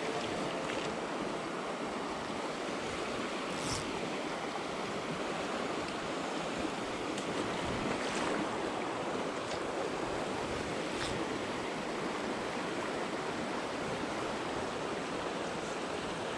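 Steady rush of a fast, cold river running over a rocky riffle close by, with a few faint clicks.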